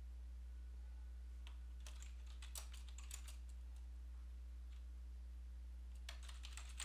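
Typing on a computer keyboard: a few scattered keystrokes in the first half, then a quick run of keystrokes near the end.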